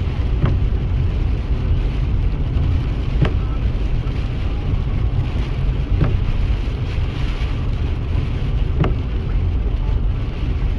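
Stormy weather: rain falling with strong wind rumbling over the microphone, and a few faint sharp ticks about every three seconds.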